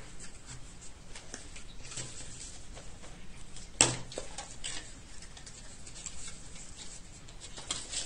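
Cardstock being handled and pressed into shape on a tabletop: scattered paper rustles and light taps, with one sharp knock a little under four seconds in.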